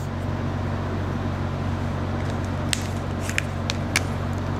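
Marker pen drawing on a whiteboard, with a few short strokes and taps about two and a half to four seconds in, over a steady low hum.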